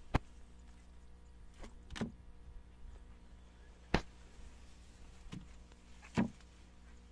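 Five sharp knocks or slaps at irregular intervals, a second or two apart, over a faint steady hum.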